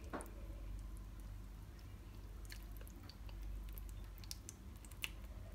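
Sunflower oil pouring in a thin stream onto raw chicken and herbs in a pot: faint wet squishing and dripping with scattered small clicks, one just after the start and one near the end.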